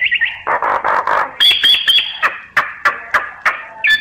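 Myna calls from a decoy recording. A fast series of sharp notes gives way, about half a second in, to a harsh rasping chatter, then short clear whistles and more quick clipped notes.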